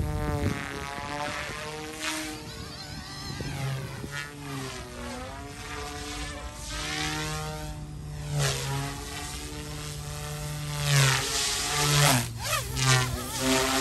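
YXZNRC F280 RC helicopter in flight: its dual brushless motors and rotor blades buzz steadily, with the pitch stepping up and down as the throttle changes. It gets louder in bursts near the end.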